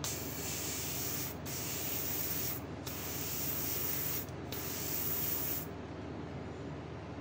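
An airbrush spraying paint: a steady hiss broken by three short pauses, stopping abruptly about a second and a half before the end.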